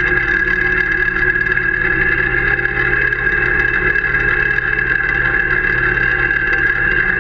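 Tractor and towed GKB aerator running steadily across the pitch: a constant machine drone with a steady high whine on top.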